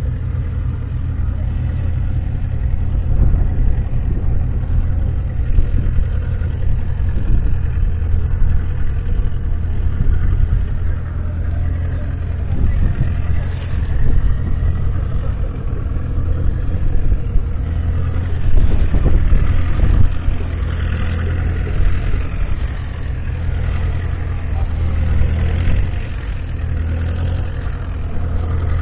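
The 6.2-litre six-cylinder diesel engine of a 1966 Ford Roadless Ploughmaster 90 tractor running steadily, heard close up.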